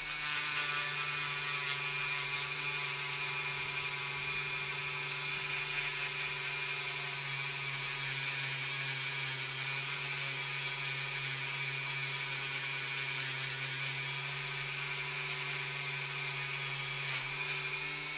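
Handheld rotary tool running steadily at high speed, a small orange wheel on its mandrel working over a zinc-plated die-cast metal toy car body. A few short sharp ticks cut through the steady whine, the loudest near the end.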